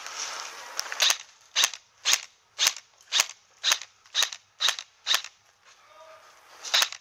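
Airsoft replica firing single shots in steady succession, about two a second, nine in a row, then a quick pair of shots near the end.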